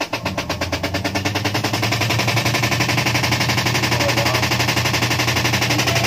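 Samsung Wobble WA65H4200SW top-load washing machine running with a loud, fast, even rattle, its motor hum setting in just after the start. The noise comes from a Downy fabric-softener sachet caught inside the machine.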